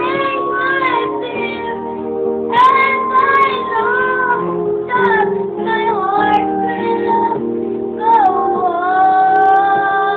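A child's singing voice over musical accompaniment, in short phrases that end in one long held note near the end.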